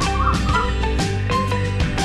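Background music with a steady beat and bass line, with a short warbling melodic figure in the first half.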